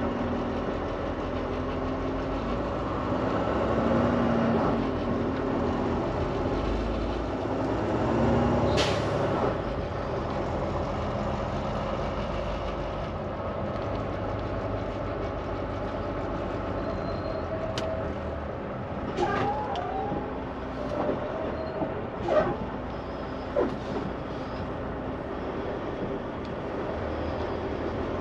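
Inside the cab of a Volvo semi-truck moving slowly in heavy traffic: the diesel engine runs steadily under road noise. A short hiss comes about nine seconds in, and a few light knocks and a squeak follow between about 19 and 24 seconds.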